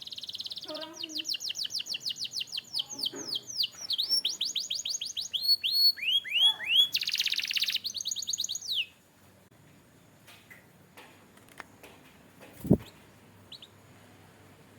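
Canary singing a fast song of rapid repeated trills and downward-slurred notes, with a buzzing roll near the end of the phrase, stopping about nine seconds in. After that come a few faint clicks and a single low thump.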